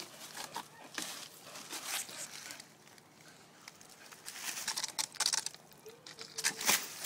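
Pitbull puppy scrambling up a tree trunk: claws scraping bark and leafy shoots rustling in irregular bursts of crackling.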